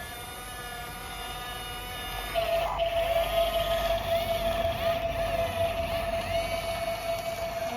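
Small electric motor and gearbox of a radio-controlled toy running with a steady whine. It gets louder about two seconds in.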